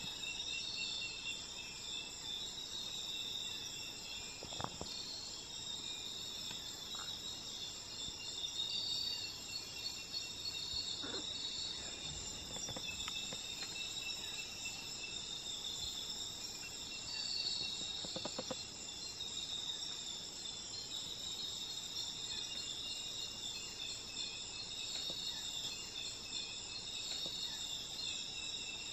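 Tropical night-time insect chorus: many crickets and other insects calling together in a dense, steady, high-pitched trill at several layered pitches.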